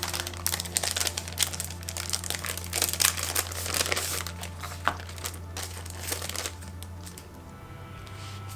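Packaging of a sticker order crinkling and rustling as it is handled and opened, with a little tearing. It stops about six and a half seconds in.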